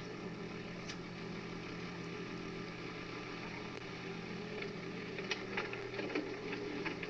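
Mini excavator's diesel engine idling steadily, with a few light clicks and rattles near the end.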